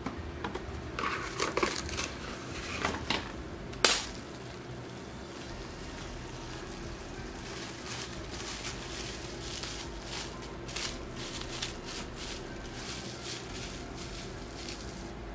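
Dishes clinking and knocking on a table, with one sharp knock about four seconds in, then plastic cling wrap crinkling as it is twisted around a ball of mashed sweet potato. A faint steady hum runs underneath.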